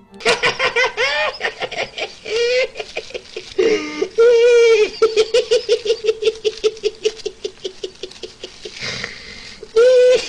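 A man laughing hard: a long run of rapid, high-pitched 'ha' pulses, several a second, with louder drawn-out bursts in between.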